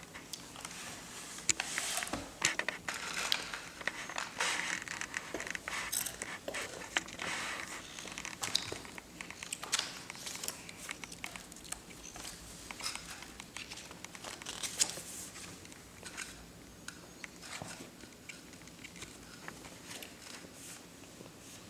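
Crinkling and rustling with many small clicks and taps of things being handled on a table, busiest in the first fifteen seconds, then sparser.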